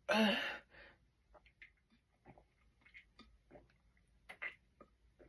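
A short throaty vocal sound with a wavering pitch right at the start, then faint scattered clicks and smacking mouth sounds.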